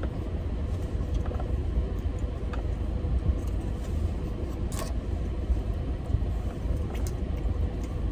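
Steady low rumble inside a car's cabin, with a few faint clicks and taps, the clearest about five seconds in.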